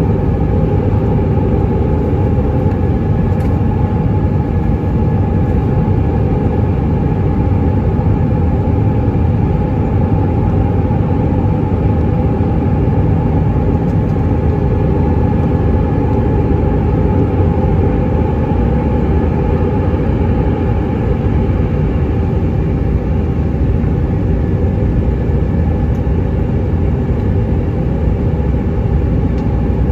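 Steady cabin noise of an Airbus A319-132 climbing after takeoff, heard from a window seat over the wing: a deep, even drone from its IAE V2500 turbofan engines with a faint steady whine above it.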